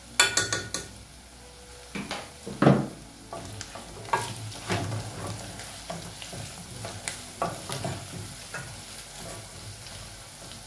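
Wooden spoon stirring and scraping beef chunks around a nonstick pot, with the spiced meat sizzling as it fries. Scattered knocks of the spoon against the pot, with a sharp cluster of them at the start.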